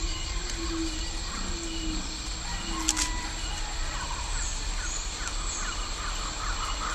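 Tropical rainforest ambience: a steady high insect drone, a run of low, sliding calls over the first three seconds, and a fast train of short chirps, several a second, through the second half. A single sharp click sounds about three seconds in.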